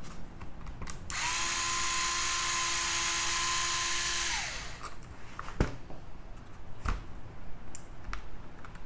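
Cordless power screwdriver running steadily for about three seconds as it backs out a screw on an RC truck's mud guard, then winding down. A few sharp clicks follow as the parts are handled.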